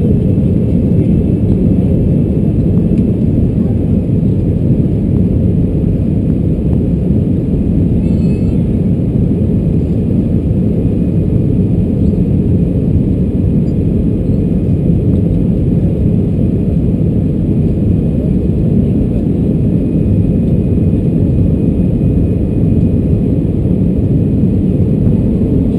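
Airbus A319-114 cabin noise in flight: its CFM56 turbofan engines and the airflow along the fuselage give a loud, even low rumble, with a faint steady whine above it.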